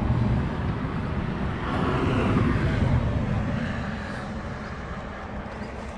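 Low vehicle rumble that builds to a peak about two seconds in and then fades away, as a vehicle passes by.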